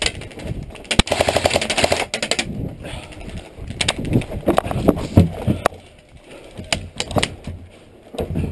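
Airsoft electric gun firing a full-auto burst of rapid sharp clicks about a second in, lasting about a second and a half, followed by scattered single sharp clicks.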